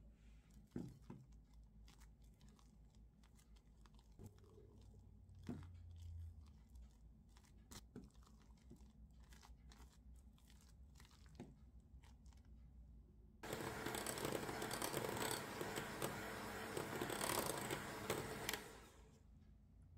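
A silicone spatula scraping and folding soft cream in a glass bowl, with faint clicks and squelches. About thirteen seconds in, an electric hand mixer starts suddenly, beating the cream and butter mixture much louder for about five seconds, then winds down.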